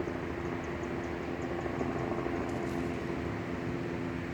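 Helicopter flying over the area: a steady drone of rotor and engine, even in level, with a constant hum and a fast low flutter underneath.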